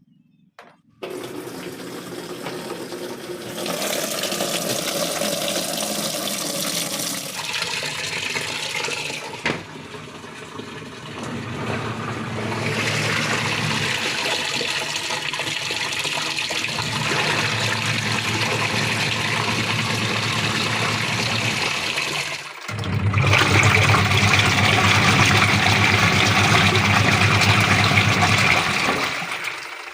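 Polytron top-loading washing machine running: water churning and splashing in the tub over a steady motor hum, in stretches of several seconds with short lulls between. The pulsator is agitating the wash.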